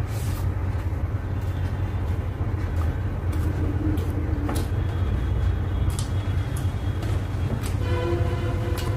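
Eating sounds: chewing with scattered short clicks and smacks as fingers mix rice and curry on a steel plate, over a steady low rumble. A brief pitched tone sounds about eight seconds in.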